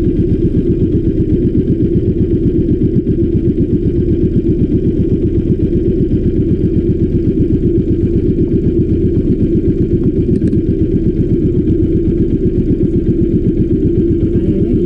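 A small boat's engine running steadily at a constant speed, with a rapid, even pulse.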